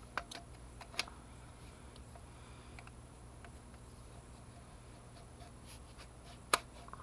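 Sharp plastic clicks and light knocks from handling an impact drill's side handle and depth-stop rod: a couple of clicks about a second in, then one louder click near the end.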